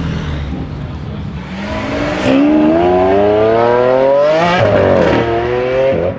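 A car accelerating hard. Its engine note climbs steadily for about three seconds and drops sharply at an upshift, then climbs again before a second shift near the end.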